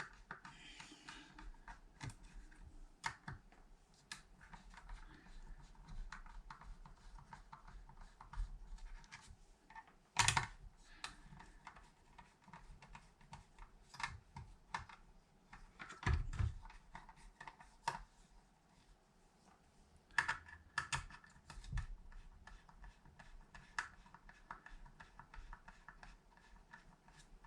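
Screwdriver turning small screws out of a power inverter's casing: a run of faint, irregular clicks and scratches, with a couple of louder knocks along the way.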